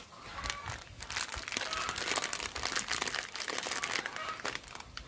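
Knorr cream of mushroom soup packet crinkling and crackling as it is squeezed and shaken empty by hand, with many quick sharp crackles.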